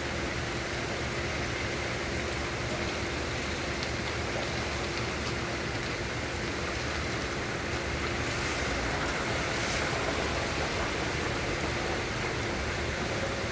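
Steady rain falling, an even hiss that swells a little about eight seconds in.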